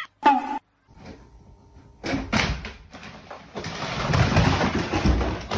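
A brief cat meow, then about two seconds in a jumble of rustling and knocks begins, from the phone being handled around a wooden door.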